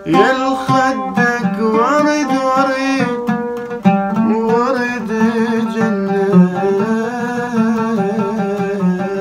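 A man singing an Iraqi song to his own oud, with steady plucked notes beneath a voice that slides between pitches.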